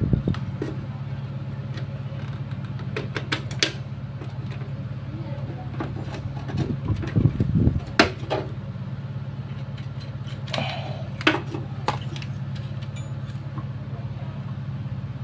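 Scattered light clicks and rustles of wiring and a TV circuit board being handled, over a steady low hum.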